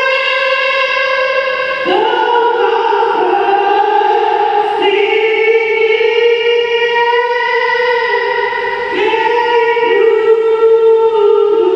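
A woman singing solo into a handheld microphone, amplified through PA speakers in a gymnasium, holding long, steady notes that change pitch every few seconds.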